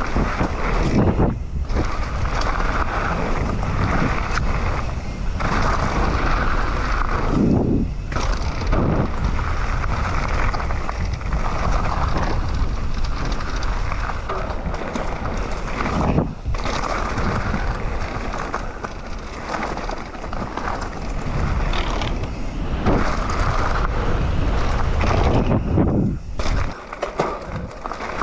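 Mountain bike riding fast down a dirt jump trail: tyres rolling on dirt and wind rushing over the microphone in a steady roar, broken by a few short lulls and dull thuds.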